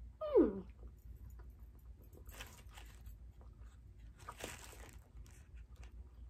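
Close-up chewing and crunching of a breakfast burrito, with two rustly crunchy patches in the middle. Just before them, about half a second in, comes a short, louder sound that slides quickly down in pitch.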